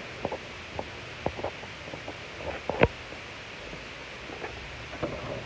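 Scattered light footsteps and knocks over a steady background hiss, with one sharper knock nearly three seconds in.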